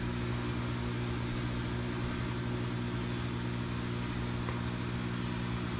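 Fog machine running, a steady low electric hum, while it pumps fog through the chiller's duct.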